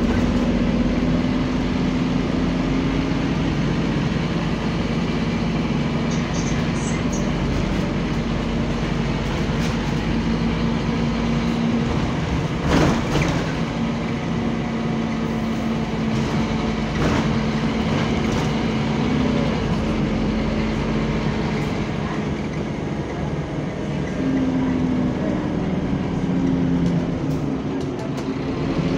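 Scania bus's engine cooling fan droning with a steady hum over the diesel running, heard from inside the passenger saloon; the pitch of the hum shifts slightly near the end. A single clunk about halfway through.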